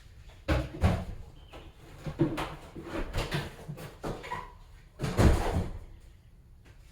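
Boxes being pulled out and handled: an irregular run of knocks, scrapes and rustles, the loudest just after five seconds in.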